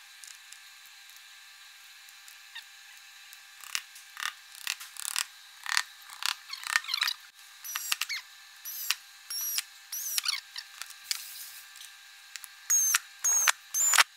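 Power screwdriver driving screws into MDF furniture panels and cabinet hinge plates: after a few quiet seconds, about a dozen short bursts, each with a high motor whine that rises as the bit spins up, the loudest near the end. The sound is thin, with no bass.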